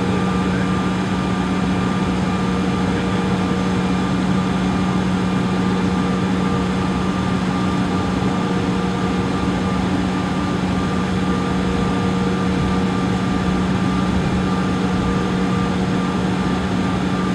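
Cabin noise of a Bombardier CRJ700 taxiing, its rear-mounted jet engines at low power: a steady hum with a strong low drone and fainter higher tones over an even rush.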